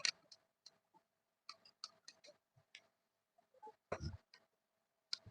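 Faint, irregular light clicks and ticks of screws and a screwdriver on a ceiling fan's metal housing as its screws are fitted and tightened during reassembly, with one louder dull knock about four seconds in.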